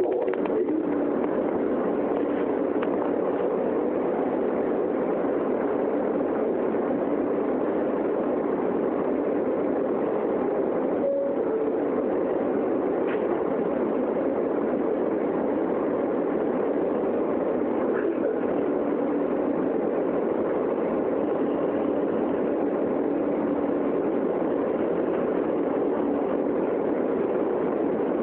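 Steady rumble and hiss inside a New York City subway car running through the tunnel, with a faint steady hum that drops away near the end.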